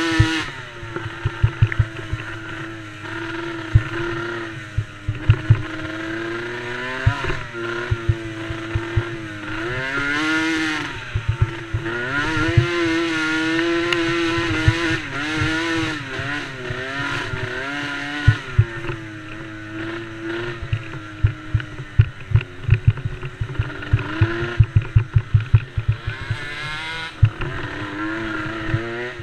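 Small engine of a DRR DRX90 youth ATV under race throttle, its pitch repeatedly climbing and dropping as the rider accelerates, eases off and shifts. Frequent short low thumps run under the engine.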